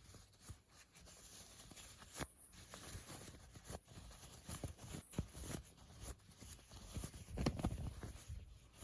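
Cotton fabric rustling and rubbing as a hand-sewn face mask is turned right side out, in soft irregular handling noises that grow a little louder about seven seconds in.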